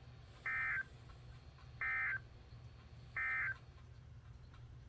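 Emergency Alert System end-of-message data bursts: three identical short, harsh digital tone bursts about a third of a second long, spaced about 1.4 s apart, the SAME signal that marks the end of the alert.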